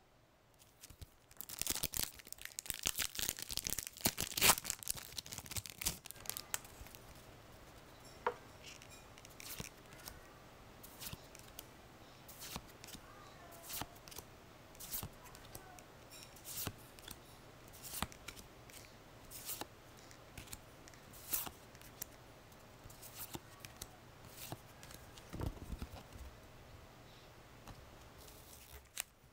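Foil Pokémon booster pack wrapper being torn open with a burst of crinkling for several seconds. The trading cards are then handled one at a time, each making a short soft click about every second and a half.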